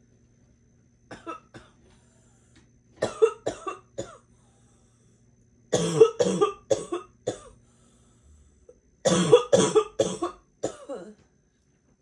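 A girl's harsh barking cough, coming in four fits of several quick coughs each, the later fits longer and louder.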